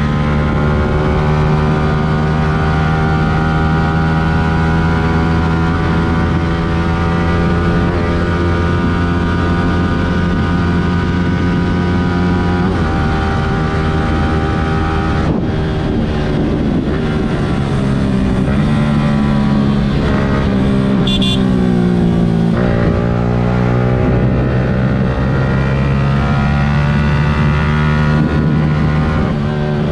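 Yamaha R15 V3's 155 cc single-cylinder engine heard on board while riding. It holds steady high revs at first, then in the second half the revs fall and climb again several times.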